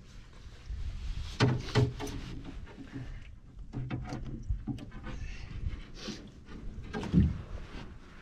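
Scattered knocks and low thumps on an aluminum canoe's hull as gear and bodies shift aboard, several separate strikes a second or more apart.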